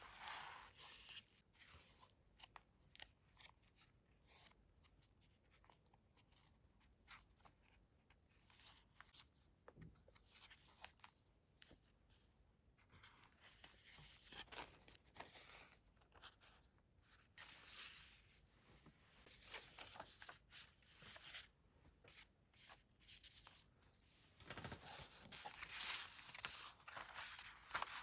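Quiet paper handling: paper rustling and tearing, with scattered small clicks and snips. The rustling comes in stretches, with the longest and loudest near the end.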